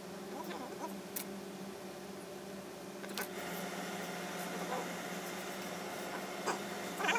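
A tailor's steam iron pressing a wool suit jacket's hem: a knock about three seconds in, then a steady steam hiss, over a low steady hum.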